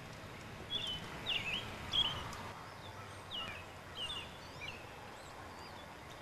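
Small birds chirping: about ten short, quick notes in the first four seconds or so, thinning out near the end, over a faint steady outdoor hiss.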